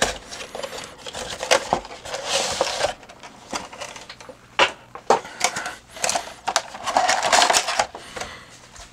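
Cardboard toy box and clear plastic blister tray being handled and opened: scattered sharp clicks and scrapes, with a longer crinkling rustle of the plastic tray about seven seconds in.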